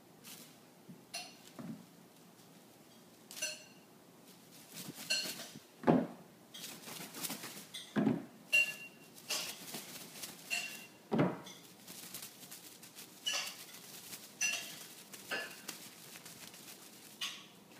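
A Bengal kitten leaping and landing on a hardwood floor: irregular thumps, the heaviest about six, eight and eleven seconds in, mixed with many light metallic clinks and jingles.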